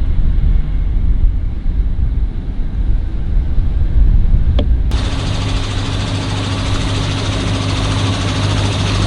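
A rough low rumble, then an abrupt change about five seconds in to a steady motor hum at a constant low pitch.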